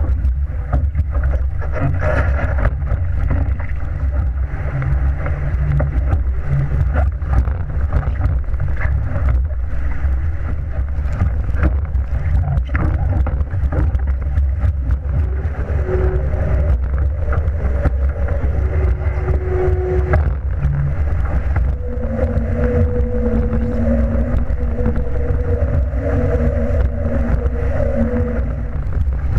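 Heavy wind rumble on the microphone and water rushing and splashing along the hull of a Shaw 650 sportsboat sailing at speed. A faint humming tone comes and goes in the second half.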